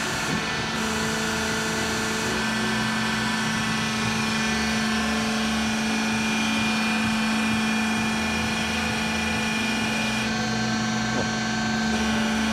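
Metallkraft BMBS 290x290 CNC-DG-F automatic metal-cutting band saw running, a steady machine hum with a constant low tone and a higher whine over it.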